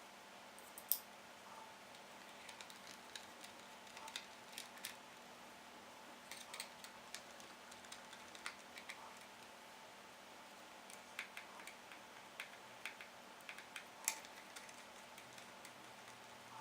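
Scattered light clicks and taps of hands working on a PowerBook G4 laptop, irregularly spaced, with two sharper clicks about a second in and near the end.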